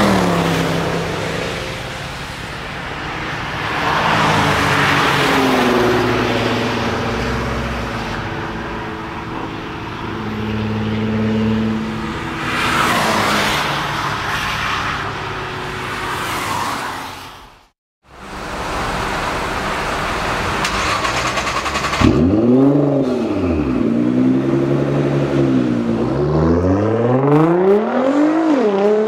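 A modified BMW E92 M3 V8 with a full SuperSprint exhaust (decat pipes, unsilenced X-pipe, F1 race mufflers) and a Nissan R35 GT-R twin-turbo V6 with a decatted Meisterschaft exhaust accelerate hard on a wet track. Their engine notes rise and fall through the gears over a hiss of tyre spray, then fade into the distance. After a brief cut, in the last third an engine revs up and down again and again.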